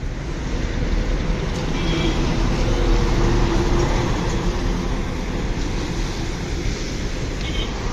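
Road traffic noise with a bus passing close by. The engine drone and tyre noise swell to a peak about three seconds in, then ease off.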